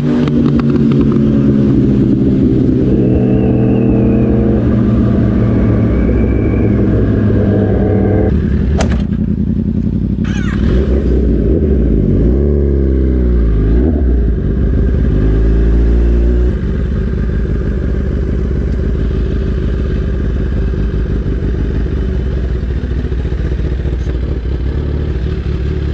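Kawasaki ZX-10R sport bike's inline-four engine, heard from the bike, with the revs falling steadily as it slows down. There is a sharp click about nine seconds in and a dip and rise in revs around twelve to fourteen seconds. From about sixteen seconds it runs steadily at low revs, a little quieter.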